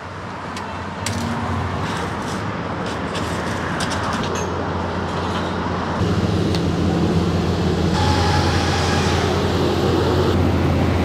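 Road traffic on a highway: a continuous rush of passing vehicles and tyre noise that grows gradually louder, with a steady low engine hum that strengthens about halfway through.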